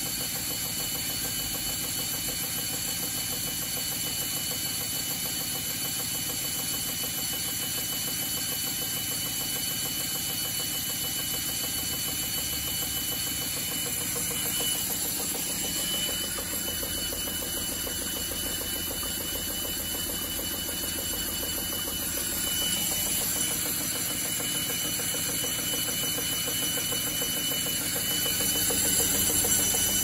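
Baumatic washer-dryer running with a steady motor whine, building towards a spin with a heavy load of towels and rags in the drum. It gets louder about two-thirds of the way through and again near the end.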